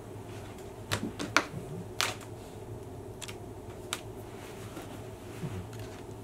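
Sharp clicks and taps of small parts being handled on a workbench: test probes and wires set down, wire connectors worked. A cluster comes about a second in and a strong click at two seconds, then a couple of lighter ticks, over a faint steady electrical hum.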